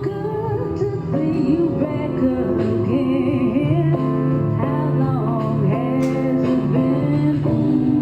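Music with a woman singing over sustained accompaniment and a held bass line.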